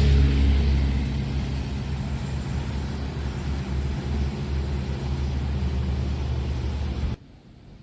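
Passing train at a level crossing: a steady low engine drone with rumble that eases slightly, then cuts off suddenly near the end.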